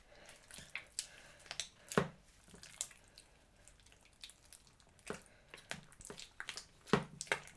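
Sticky slime being kneaded and squeezed by hand, making irregular soft wet clicks and pops, the loudest about two seconds in and again near the end.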